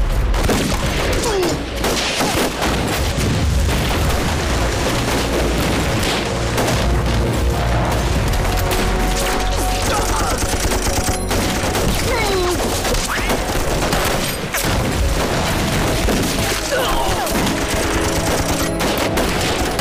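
Dense, continuous gunfire of a battle, many shots crowding together, over film music with sustained tones, with scattered shouts.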